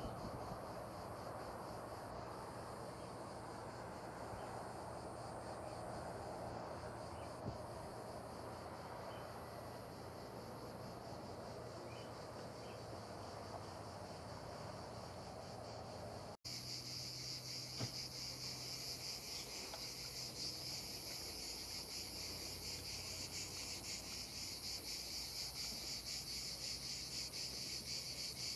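A chorus of chirping insects, a high, fast-pulsing buzz that goes on without a break. It drops out for an instant about sixteen seconds in and comes back louder.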